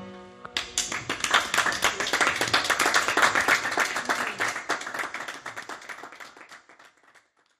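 The last notes of music die away, then applause starts about half a second in: many hands clapping unevenly. It swells and then fades out over the last few seconds.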